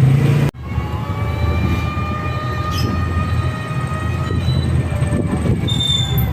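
A vehicle in motion: a steady low rumble with steady high whining tones, after an abrupt cut about half a second in.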